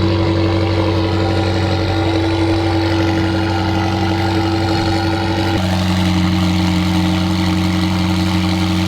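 A car engine idling steadily; its pitch shifts slightly a little past halfway.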